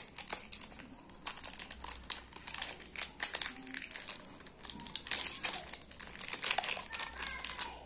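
Plastic packaging crinkling and crackling irregularly in the hands as a pack of Fevikwik superglue is opened.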